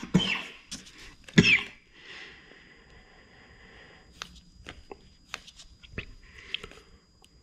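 Light handling noises from a small plastic threadlocker bottle as a drop is put on a screw: two sharp sounds near the start, a soft hiss for a couple of seconds, then scattered light clicks and taps.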